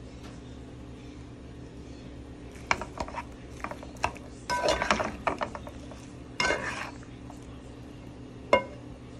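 Kitchen tongs clacking and scraping against the cookware while tossing penne pasta, in several short bouts from about three to seven seconds in and a single sharp click near the end. A steady low hum runs underneath.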